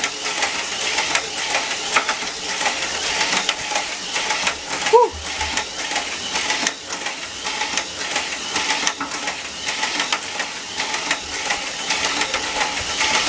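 Tamiya Mini 4WD car with an Atomic-Tuned 2 motor running laps on a plastic track: a steady high-pitched whir from the motor and gears, with rapid clattering clicks as the car runs against the track walls. A short chirp sounds about five seconds in.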